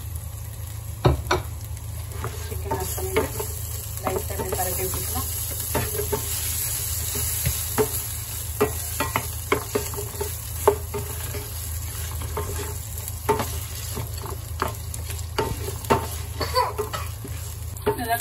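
Fried chicken pieces sizzling as a wooden spatula stirs and tosses them through chilli-garlic masala in a non-stick pan, with scattered sharp knocks of the spatula against the pan.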